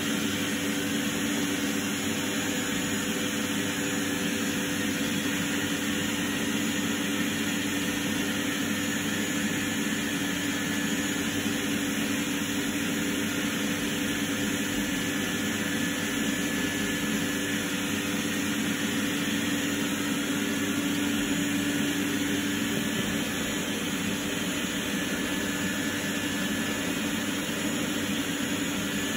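Steady mechanical hum and whir that holds at the same level throughout, with a low drone and a couple of fainter steady higher tones, as from a running fan or blower.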